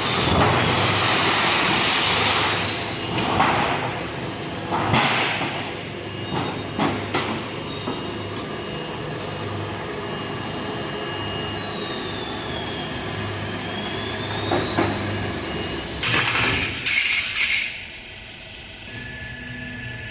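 Workshop machinery noise with several metal clanks and knocks, a high whine that slides down and back up in pitch midway, and a burst of loud metal clatter near the end before the noise drops off.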